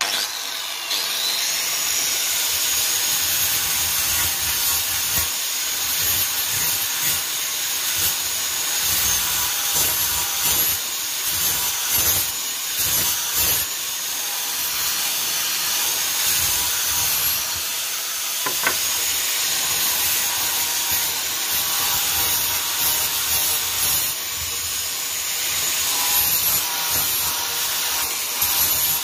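Electric angle grinder with a sanding disc running against the edges of a cut PVC pipe piece, smoothing them: a steady high motor whine with the rasp of the disc on the plastic, starting abruptly at the beginning.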